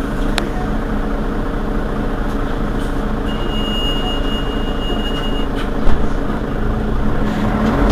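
Mercedes-Benz Citaro city bus engine idling steadily, heard from close behind the bus. A short click comes about half a second in, a steady high beep lasts about two seconds in the middle, and a sudden loud thump comes about six seconds in. The engine grows louder near the end.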